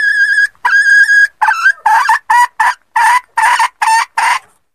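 Red junglefowl hen cackling: two held high notes in the first second and a half, then a quick run of about eight short clucking notes that stops near the end. It is a hen's call used to lure both cocks and hens.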